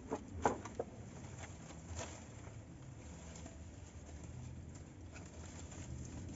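Palm fronds rustling as one is laid on the shelter roof and arranged by hand, with a few light knocks in the first second, the loudest about half a second in, and another near two seconds.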